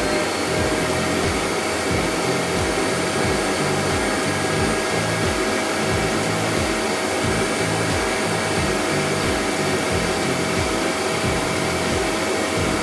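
Vacuum cleaner motor running steadily at full speed with a constant high whine, over background music with a beat.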